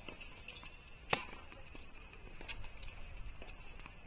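Tennis rally: a racket strikes the ball with one sharp pop about a second in, followed by fainter hits and bounces. A faint steady high whine runs underneath.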